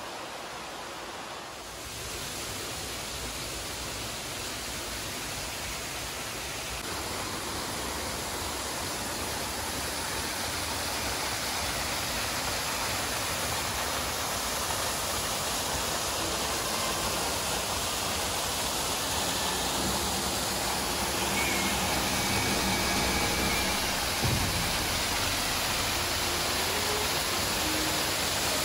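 Small waterfall splashing down a rock face into a pool, a steady rush of water that grows gradually louder. A single brief knock about three-quarters of the way through.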